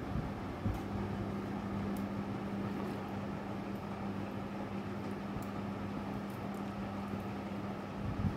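A steady mechanical hum with a constant low tone, setting in about a second in, with a few faint ticks over it.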